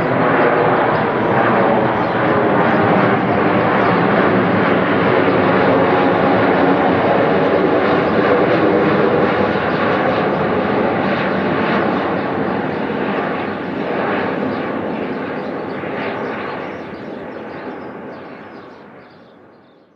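Twin-engine jet airliner on approach with its landing gear down, passing low overhead: a loud, steady jet engine roar with steady tones running through it, fading away over the last few seconds.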